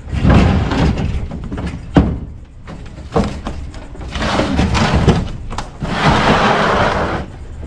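Outdoor air-conditioner condenser unit being shoved into a pickup truck bed: its metal cabinet thunks and scrapes against the tailgate and bed. A sharp bang comes about two seconds in and lighter knocks follow, mixed with a man's grunts of effort.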